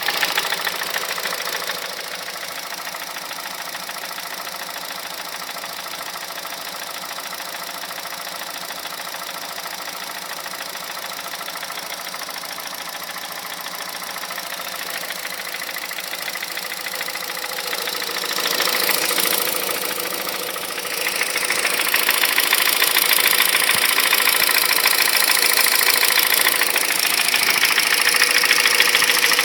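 Honda Civic Hybrid 1.3 IMA petrol engine running with a knock whose cause the owner can't place: camshaft, valves, bearings, timing chain or piston slap. It runs steadily at first, swells briefly about two-thirds of the way through, then runs louder and higher for the rest.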